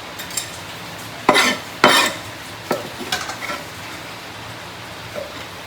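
Cooking utensil stirring and scraping in a pan of frying food, with a run of sharp scrapes and clanks, the loudest two about one and two seconds in, over a steady sizzle.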